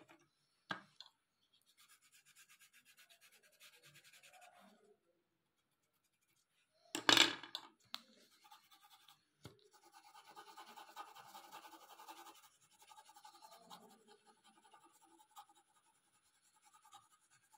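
Colored pencil shading on paper: runs of quick back-and-forth scratchy strokes, with a louder knock about seven seconds in and a couple of small clicks.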